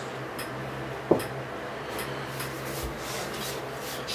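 Quiet room tone with a steady low hum, a few faint ticks, and one sharp click about a second in.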